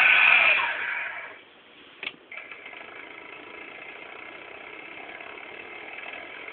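CD-ROM drive motor run by a PIC microcontroller, whirring with a steady whine that dies away over about a second. There is a single click about two seconds in, then the motor runs again with a quieter, steady whir.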